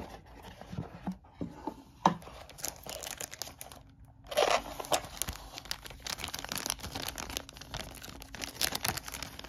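Cardboard game box being opened and handled, with scattered light clicks and knocks, then thin clear plastic bags crinkling steadily from about four seconds in as they are lifted out and handled.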